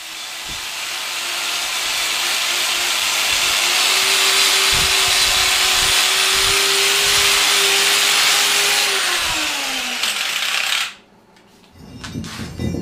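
Angle grinder with a flap disc grinding rust and scale off the steel face of an anvil: a steady motor whine over a harsh grinding hiss. It builds up at the start, then winds down in pitch and stops about eleven seconds in. A few short knocks follow near the end as the heavy anvil is tipped over.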